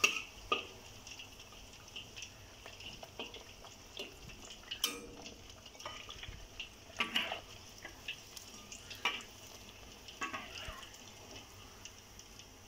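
Cooked tempe frying in shallow oil in a wok, a faint steady sizzle, with several sharp clicks and scrapes of a metal spatula against the wok as the pieces are lifted out.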